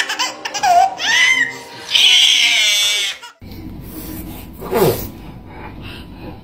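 Baby laughing hard in bursts, with a long, loud squealing laugh about two seconds in. The laughing stops suddenly a little after three seconds, leaving a quieter room hum and one short falling vocal sound later on.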